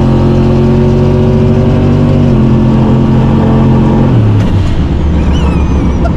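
Turbocharged Chevrolet Silverado pickup's engine pulling hard at high revs, the note holding steady, dipping slightly about two seconds in and dropping sharply about four seconds in as the revs fall. It then runs on as a lower, rougher rumble, with a short wavering high squeal near the end.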